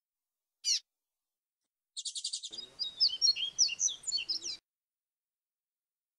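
A papa-capim seedeater singing the "grego flautado" song. A single short high call comes about half a second in. At about two seconds a burst of song starts with a fast trill and runs into varied whistled phrases for about two and a half seconds.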